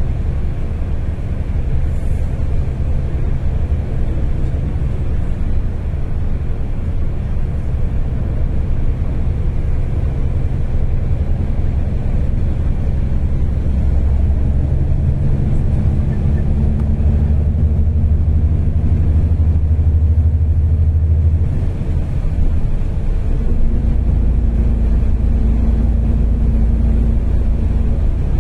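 Moving bus heard from inside the cabin: a steady low engine and road rumble, its drone shifting in pitch a few times.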